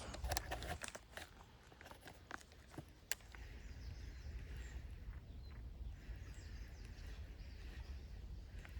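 Quiet outdoor ambience with faint bird calls. A few sharp clicks fall in the first second and one more about three seconds in.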